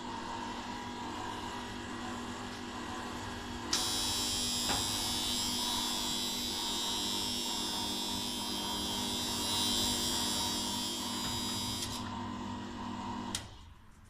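Planoprint 50 plate exposure unit running with a steady electric motor hum. About four seconds in a loud hiss joins it. Near the end the machine stops with a click.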